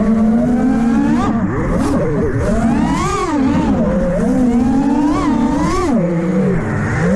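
FPV drone's brushless motors and propellers whining, the pitch rising and falling over and over as the throttle is worked.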